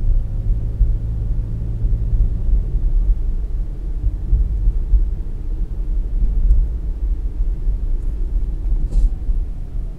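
Car driving: a steady low rumble of engine and road noise, with a few faint ticks in the second half.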